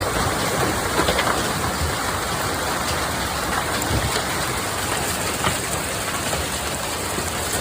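Large hail pelting down with rain in a thunderstorm: a dense, steady hiss and clatter of stones, with many sharper individual hits scattered through it.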